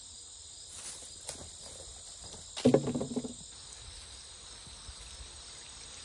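Insects chirring steadily at a high pitch, with a few faint clicks and one sudden knock and rustle about two and a half seconds in.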